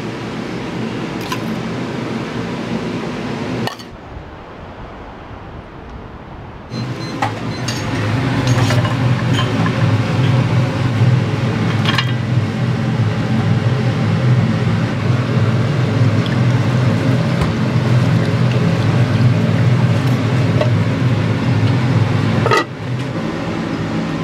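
Restaurant kitchen noise: the steady roar of a gas wok burner and extractor hood, with scattered clinks of metal utensils and dishes. The roar drops quieter about four seconds in, comes back loud about seven seconds in, and drops again near the end.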